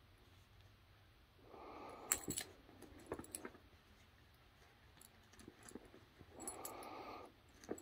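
Basset hound puppy tugging and chewing a rope toy: two short growls, about a second and a half in and again near the end, amid sharp clicks and jingles from its collar hardware and teeth on the rope.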